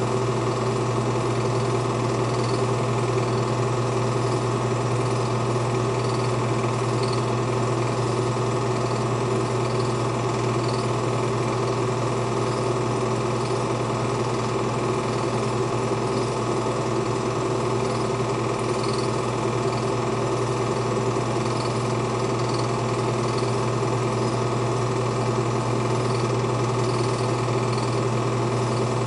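Film projector running: a steady mechanical whirr with a constant low hum and a faint regular clatter, unchanging throughout.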